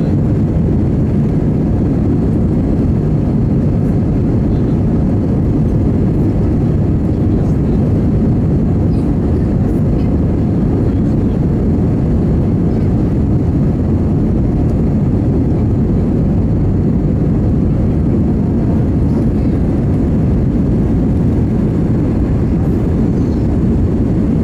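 Steady, loud low rumble of an Airbus A320's engines and airflow heard inside the cabin, holding an even level.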